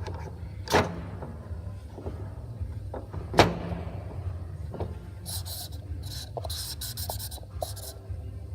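Two sharp knocks about two and a half seconds apart, then a run of short hissing bursts over a steady low hum.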